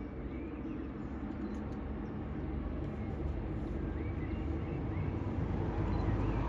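Countryside ambience: a low rumble that slowly grows louder, with a few scattered bird chirps.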